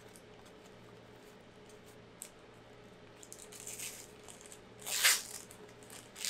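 Basketball trading cards being handled and flipped through: a small tap about two seconds in, light rustling, then a brief louder swish of card stock about five seconds in, over a faint steady hum.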